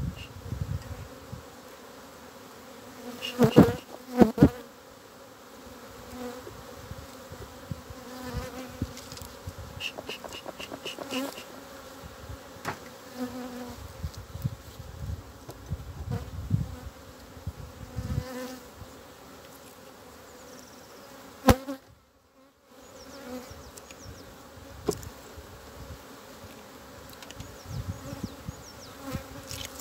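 Honeybees buzzing steadily in a low hum around an opened wooden hive. A few loud wooden knocks come a few seconds in, and a single sharp click later, as the frames are worked.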